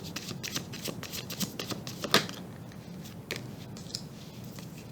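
Tarot cards being shuffled and handled: a run of quick soft flicks and clicks, with one sharper snap about two seconds in.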